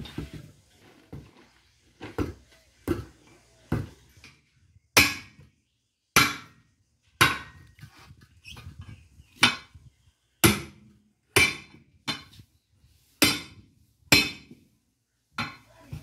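Hand hammer striking about once a second, some fifteen sharp blows, driving a tyre lever down between the tyre bead and the steel rim of a tractor trolley wheel to break the bead loose.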